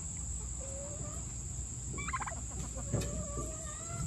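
Domestic turkeys calling softly: a short thin note about half a second in, a brief call of a few stacked notes around two seconds in, and a longer drawn-out note near the end, over a faint low rumble.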